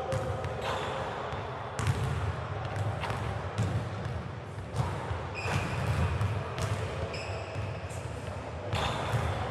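Basketballs bouncing on a hardwood gym floor: irregular thuds about once a second, ringing in the large hall, over a steady low hum.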